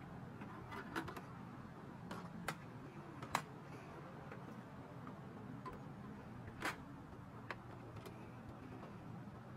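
Faint, scattered plastic clicks from hands working the cassette compartment of a Philips D8072 boombox, about seven in all, over a low steady hum.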